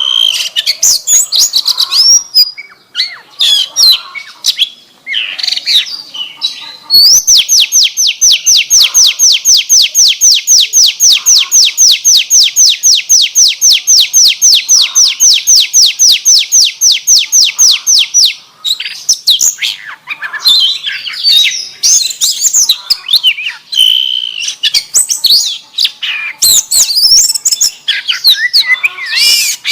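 Oriental magpie-robin (kacer) singing a loud, varied song of quick high whistles filled with canary-like phrases. From about seven seconds in, it holds a long, even trill of rapidly repeated notes for about eleven seconds, then returns to varied phrases.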